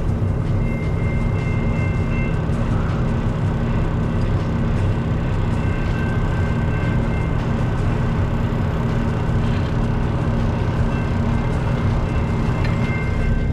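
Long double-stack container freight train rolling past, a steady rumble of railcars on the track heard from inside a truck cab, over the low hum of the truck's engine. A faint high squeal comes and goes a few times.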